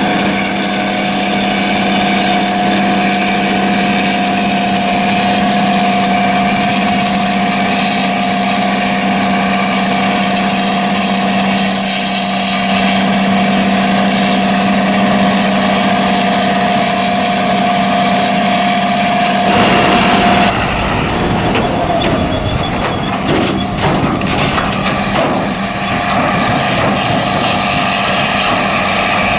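Heavy farm machinery running steadily at working speed, with a constant droning whine; about two-thirds through, a brief rush of noise gives way to a rougher, more uneven engine sound.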